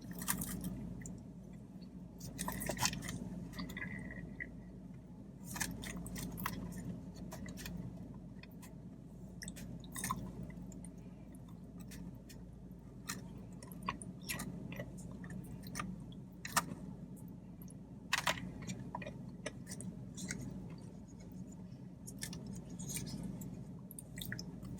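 A person chewing food close to the microphone, with scattered sharp mouth clicks and crunches over a steady low hum.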